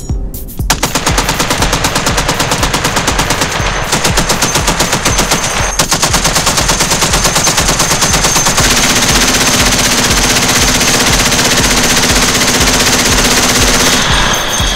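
Heavy machine gun on a remote weapon station firing long automatic bursts of rapid, evenly spaced shots. The firing starts just under a second in, breaks off briefly twice, at about four and six seconds, then runs as one continuous burst until shortly before the end.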